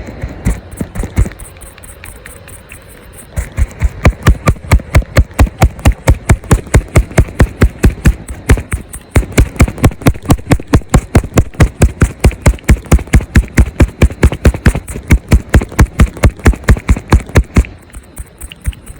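Rapid, even knocking, about five sharp strikes a second, with a brief pause about nine seconds in; a few scattered knocks come before it starts.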